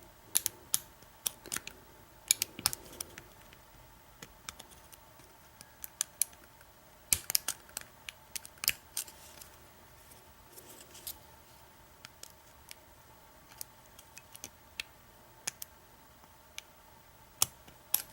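Irregular small clicks of a Goso hook pick working the pin stack of an American 1100 padlock during single-pin picking. The clicks come in bunches, a couple of seconds in, in the middle and near the end.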